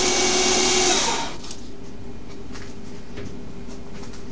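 Small CNC lathe's spindle running with a steady hiss and whine, then winding down and stopping about a second in. A quieter steady hum and a few faint ticks remain after it stops.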